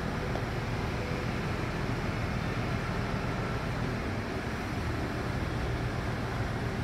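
Diesel engines of a KiHa 48 railcar set idling while the train stands: a steady low rumble.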